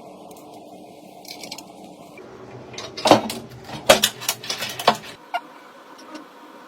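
A handful of sharp clicks and light clatter of small hard objects, bunched together in the middle.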